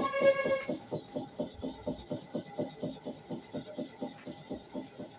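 Hair-clipper blade rubbed back and forth on a sharpening surface in quick, even scraping strokes, about five a second, growing fainter near the end. A brief pitched tone sounds in the first second.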